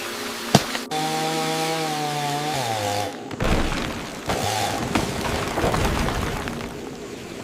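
Chainsaw running, its engine note dropping in pitch after about a second and a half and stopping near three seconds. A sharp crack comes before it, and a rough, noisy stretch of knocks and rasping follows.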